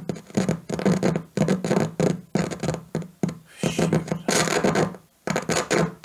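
Crackling and scratching from a Lawo V976/18 microphone preamplifier's output, in irregular bursts with a hum that cuts in and out, as its switch is worked. It is the sign of an intermittent contact at the switch shaft.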